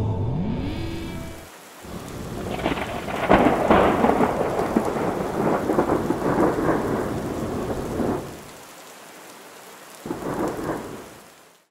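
Thunderstorm sound effect: rain falling, with a long crackling peal of thunder from about two seconds in and a shorter thunderclap near the end. It cuts off suddenly at the close.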